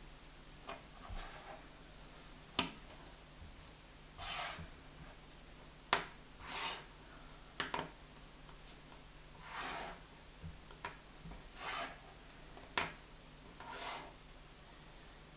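Fused plastic Perler bead pieces set down and slid across a wooden tabletop: several light clicks as pieces touch down, alternating with short scraping slides as they are pushed into place.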